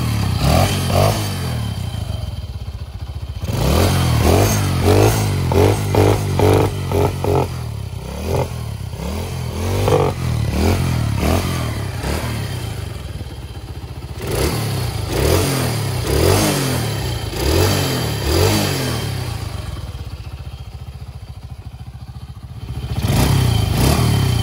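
Exhaust note of a hand-built scale-model Honda CBR 600 RR mini bike, its small engine running with repeated quick throttle blips. There is a rapid run of about half a dozen revs a few seconds in, more blips later, and a longer, louder rev near the end.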